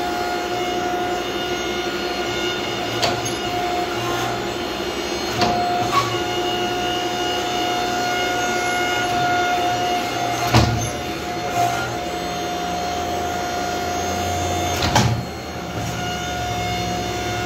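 Hydraulic forging press running, its pump giving a steady whining hum that swells and eases as the ram squeezes a red-hot steel block. A few sharp metallic knocks, the loudest about ten and fifteen seconds in.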